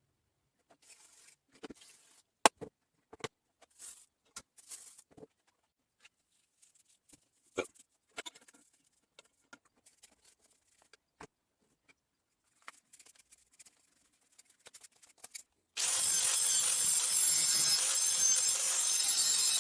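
Scattered light clicks, knocks and scrapes of parts being handled on a bench. Near the end, a loud steady machine noise, like a power tool running, starts abruptly and keeps going.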